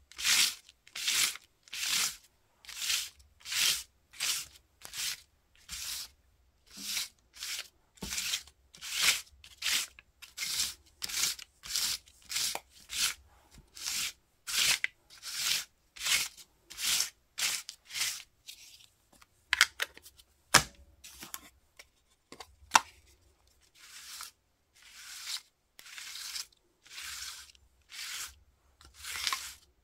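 Ink pad rubbed over crumpled kraft paper bag, about two scratchy strokes a second. A few sharp clicks come about two-thirds of the way through, where the strokes thin out.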